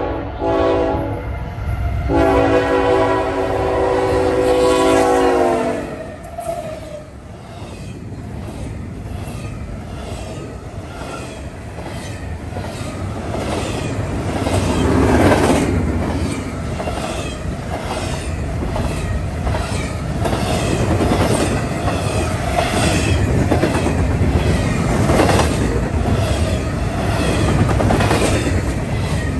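Norfolk Southern locomotive's multi-chime air horn sounding a chord, ending about a second in, then a second long blast whose pitch drops near its end as the engine passes. Then the fast double-stack intermodal train rushes by close up, wheels clicking rhythmically over the rail joints under a steady rumble.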